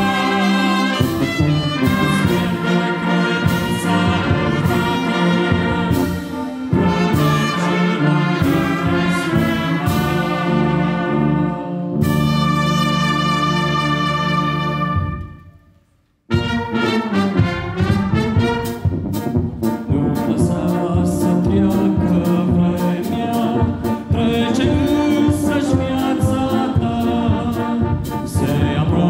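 Church brass band of trumpets, trombones, tubas and sousaphone, with flutes, playing a hymn. About halfway through the band holds a long chord that fades away into a brief silence, then the playing starts again.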